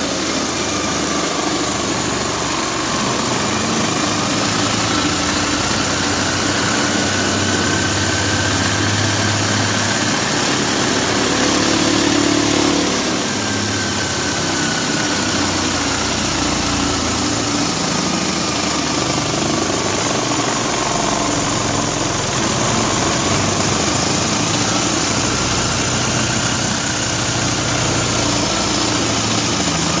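Washing machine motor running steadily, driving a go-kart's rear axle through a V-belt. It makes a constant rushing hum with a faint whine that slowly rises and falls in pitch over several seconds.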